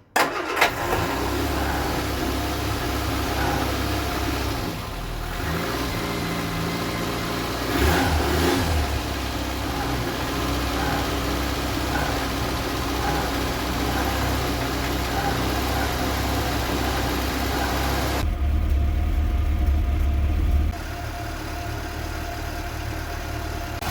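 Vauxhall Viva HC's 1256 cc four-cylinder engine with a Weber carburettor catches right at the start and then runs steadily on the choke while warming up. It gets briefly louder twice, about 8 seconds in and again for a couple of seconds later on.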